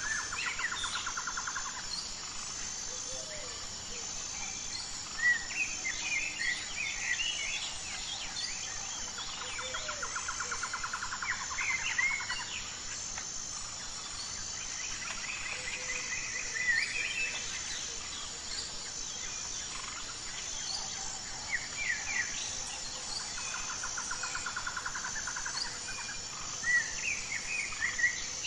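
Birdsong over a steady, high, pulsing insect chirr. A rapid trill comes three times, at the start, around the middle and near the end, with scattered chirps in between.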